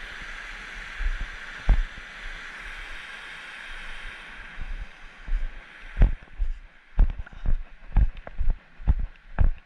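Steady rush of stream water that fades out about halfway through. Footsteps on a trail then take over, thudding about twice a second near the microphone.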